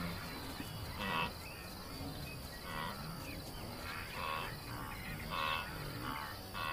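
Night insects chirping over and over, a chirp every second or less, with a faint low background.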